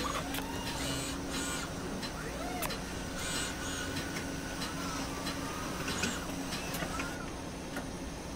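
Industrial robot machinery at work: electric motors whining up and down in pitch, short hisses, scattered clicks and a steady hum.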